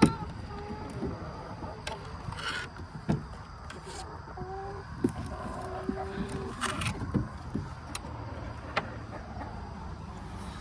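Chickens giving soft, short calls, with scattered knocks and clicks of things being handled around the coop, over a steady low rumble of distant traffic.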